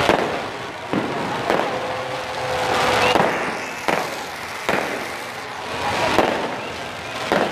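Fireworks going off, with sharp bangs at irregular gaps of about a second, about eight in all, over a dense rushing noise that swells and fades between them.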